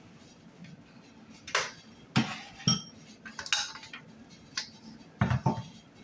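Metal kitchen utensils clinking and knocking against a pan and dishes as zucchini halves are gutted: a string of about seven separate knocks, one with a short metallic ring.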